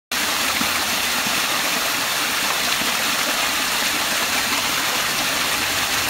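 Water from a mountain stream cascading over stone steps in a small waterfall: a steady rushing splash.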